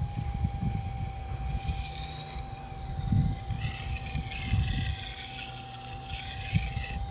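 Powered knife-sharpening machine running with a steady motor whine while a Russell butcher knife's blade is ground against it, with a hissing scrape that swells and fades as the edge is worked, raising a burr.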